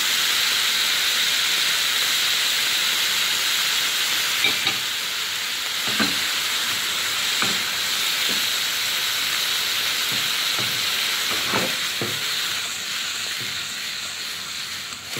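Chicken and vegetables sizzling steadily in a nonstick wok, the dark oyster-and-soy sauce just added. A spatula knocks and scrapes against the pan now and then as the stir-fry is tossed. The sizzle eases slightly near the end.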